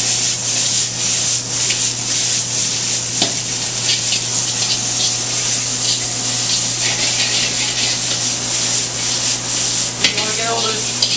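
Beef, onions and tomatoes sizzling hard in a hot wok over a gas burner, with metal tongs scraping and tossing the food against the pan. A steady low hum runs underneath.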